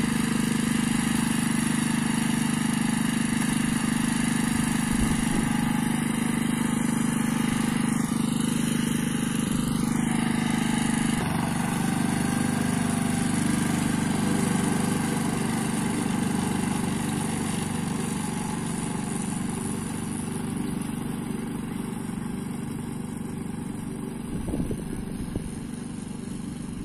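Walk-behind petrol rotary lawn mower running steadily while cutting grass, growing fainter over the last several seconds as it moves away.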